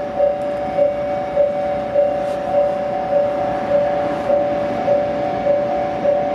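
Japanese railway level-crossing warning bell ringing: an electronic two-tone ding repeated evenly, a little under twice a second, signalling that a train is approaching.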